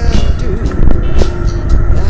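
Mack E7-460 diesel truck engine rumbling under load on a rough dirt haul road, with frequent knocks and rattles from the cab and trailer over the ruts. Music plays over it.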